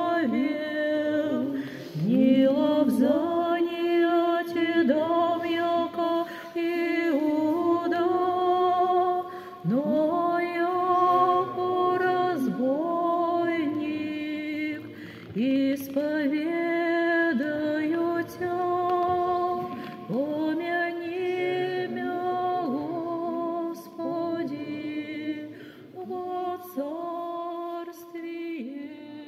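Women's voices singing unaccompanied Orthodox church chant, in long held notes and phrases with short pauses between them.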